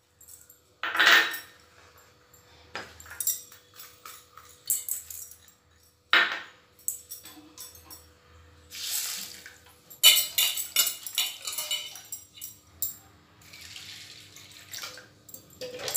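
Dry lentils poured into a stainless steel bowl, with the bowl knocking and rattling on the counter. Later, water is poured from a jug into the bowl and the lentils are swished by hand to wash them.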